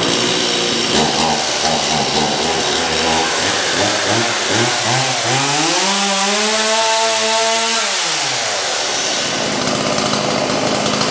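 Stihl MS170 two-stroke chainsaw running just after a pull start with the choke moved up one click. About halfway through, the engine revs up and settles back to idle.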